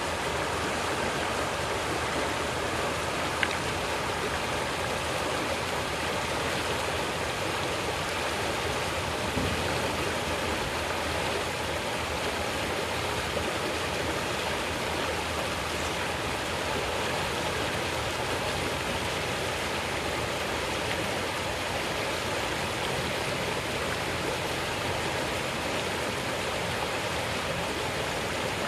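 Shallow river running fast over a stony bed, a steady rush of water through riffles. A single sharp click about three seconds in.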